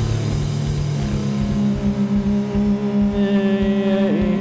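Heavy-funk rock band playing live without vocals: rapid drum hits under a long held note that comes in about a second in, with electric guitar and bass.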